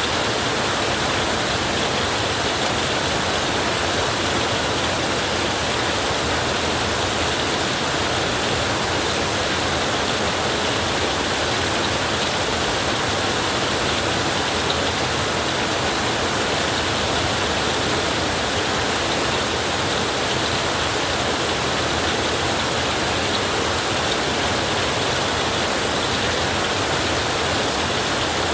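Heavy rain drumming steadily on a tin roof, a dense even hiss that does not change in level.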